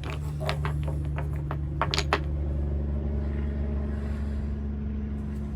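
Wooden Jenga blocks clacking against each other, a quick run of about eight sharp knocks in the first two seconds, over a steady low mechanical hum.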